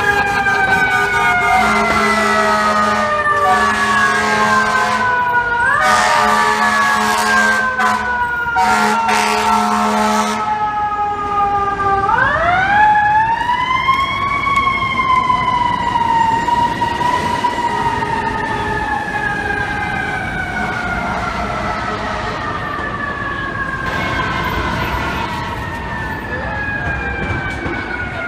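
Fire truck siren wailing in long falling sweeps. It winds back up about twelve seconds in and slides slowly down again. Air horns give several long blasts over the first ten seconds.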